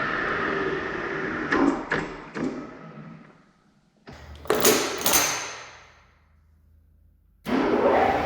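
Metal lathe heard from a GoPro spinning in its chuck: the running spindle winds down with several sharp clunks. A low hum and three loud knocks follow, then the lathe starts up again with a sudden rush of running noise near the end.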